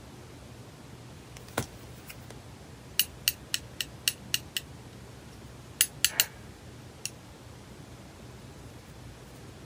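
Gel nail brush clinking against the rim of a small glass dappen dish as it is dipped in slip solution and wiped: light, ringing glassy clinks. A single click, then a run of about seven quick clinks, three more a second later, and a last one.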